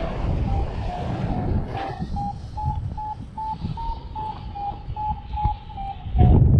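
Paragliding variometer beeping its climb tone: short beeps about two and a half a second, their pitch rising and falling a little, the sign that the glider is climbing in lift. Wind rumbles on the action-camera microphone throughout, with a louder gust near the end.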